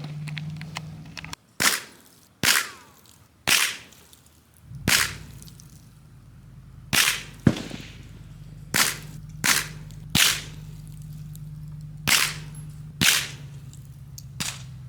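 Gunshots at an outdoor range: about eleven sharp shots at irregular intervals, some coming in quick pairs about half a second apart.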